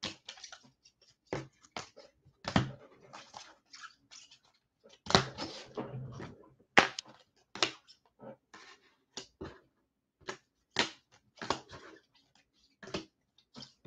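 Trading cards and plastic card holders being handled and sorted: irregular sharp clicks, taps and rustles, some louder than others.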